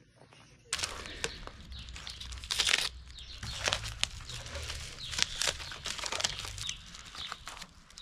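Clear plastic protective wrapping being pulled and torn off a new mountain bike's frame and fork, crinkling and crackling with many sharp little snaps. It starts suddenly about a second in.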